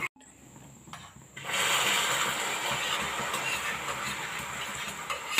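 Hot browned caramel sizzling steadily as it is poured into the cooking halwa in the pan, setting in abruptly about a second and a half in after a near-quiet start.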